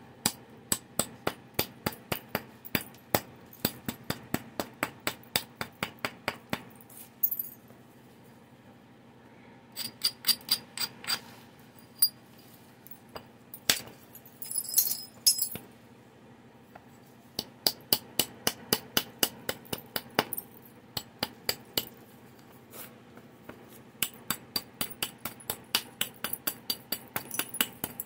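A flint preform's edge being worked in quick light strokes with a rounded abrader, giving runs of sharp stony clicks, about three a second, broken by short pauses and a little scraping: platform preparation on a Clovis point preform.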